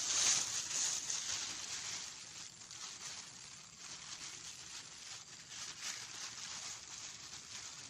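Close, crackly rustling from handling in the bankside grass, loudest in the first second and then going on more softly.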